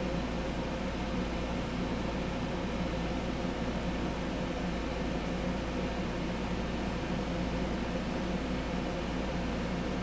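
52-inch Home Decorators Collection Windward ceiling fan running at a steady speed: an even whir of moving air with a low hum underneath.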